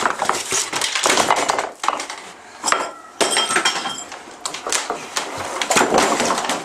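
Dishes, pots and cutlery clattering and crashing in several bursts as a kitchen is trashed, with short metallic ringing in the middle.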